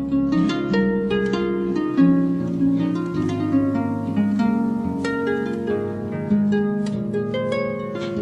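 Calm music on a plucked string instrument with a harp-like sound, many ringing notes over sustained low notes.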